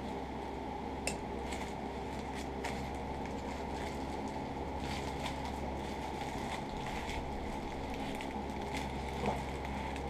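Faint handling noises as foam pipe insulation is pressed and worked onto a leather apron strap: soft rustles and a few light clicks, the clearest about a second in, over a steady low hum.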